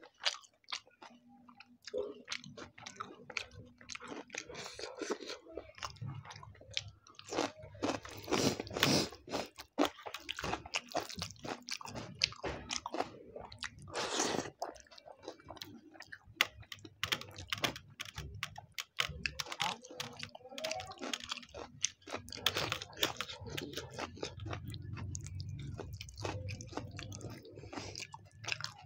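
Close-miked chewing of chicken biryani eaten by hand: wet, smacking mouth clicks and bites that come in uneven bursts, between which fingers squish and mix the rice on a steel plate.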